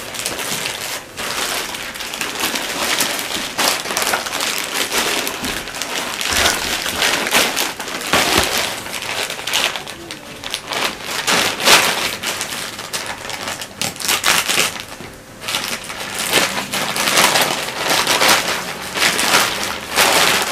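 Plastic packaging crinkling and rustling almost without pause as it is handled and pulled open, with a short lull about three-quarters of the way through.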